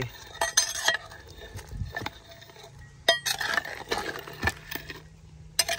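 A long steel spoon stirring meat in a clay cooking pot, clinking and scraping against the earthenware sides in a few sharp, ringing knocks.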